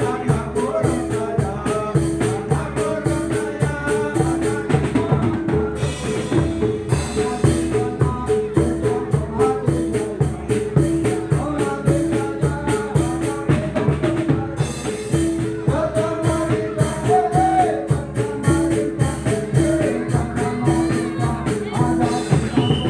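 Music with a fast, steady drum beat and a melody over it.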